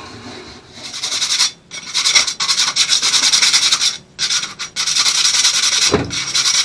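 Brisk scrubbing strokes on a galley sink drain fitting, rubbing off the dirt and grime that had got under its rubber gasket. The scrubbing comes in runs of a second or two with short breaks, and there is one dull knock about six seconds in.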